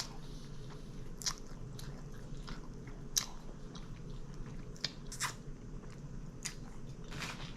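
Person chewing and biting into a Subway sub sandwich, close up, with short sharp mouth clicks at irregular intervals.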